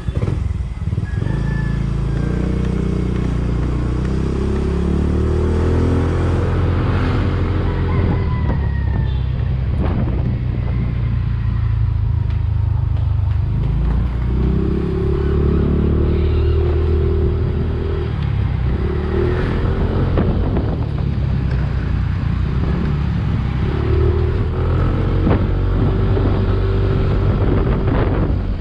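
Motorcycle engine running through a new Exos X6 aftermarket exhaust, with a full, solid sound. It settles into a steady idle and is blipped up and down several times.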